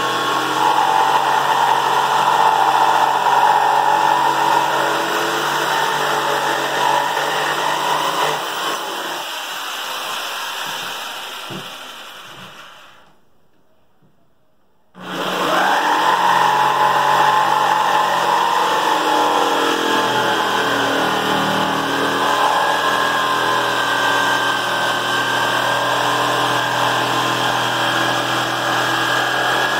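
Corded jigsaw running steadily while cutting a curve through a wooden board. It fades away to near silence a little before halfway, then starts again abruptly and keeps cutting.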